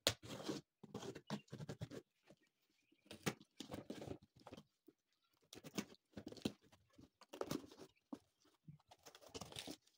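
A cardboard parcel being torn open by hand: tape ripping and cardboard flaps scraping and rustling in about six irregular bursts of roughly a second each.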